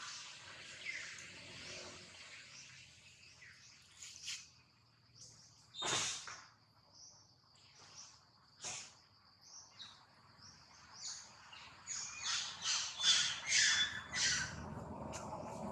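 Short, high-pitched chirping animal calls, scattered every second or two, then a louder quick run of about six calls near the end.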